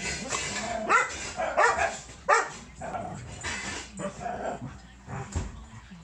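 Dogs barking and yipping during rough play, with three loud, sharp yips in the first half and quieter calls after.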